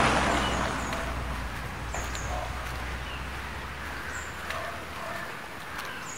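A small van passes close by and its engine noise fades away over the first second or two, a low hum trailing off by about halfway. After that, birds chirp in short high calls over quiet outdoor background.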